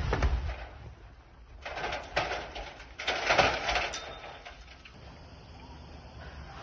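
The rumble of an explosive demolition blast dying away, followed by two bursts of rushing noise about two and three seconds in, then a low steady background.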